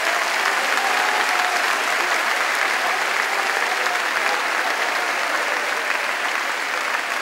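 Large audience applauding steadily in a big hall.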